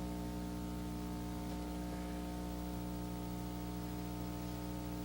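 Steady, even hum made of several held tones, over a faint hiss, with nothing else rising above it.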